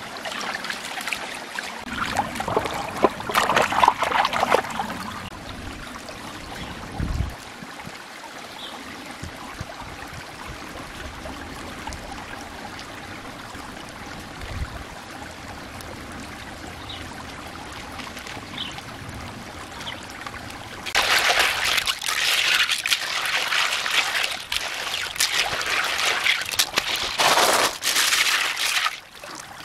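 Stream water trickling steadily, with splashing as an earthenware bowl is rinsed in the running water at the start. From about two-thirds of the way through, loud splashing and clattering as cockles are washed by hand in a wet wicker basket.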